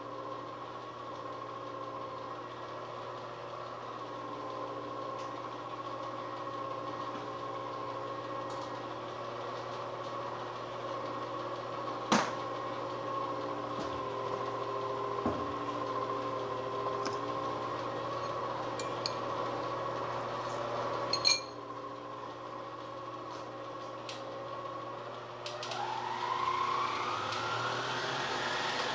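A kitchen appliance hums steadily, broken by two sharp knocks. Near the end an electric motor starts and spins up, rising in pitch.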